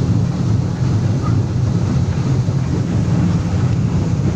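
Passenger speedboat's engines running steadily at cruising speed, a loud, even low drone with a hiss of wind and water over it.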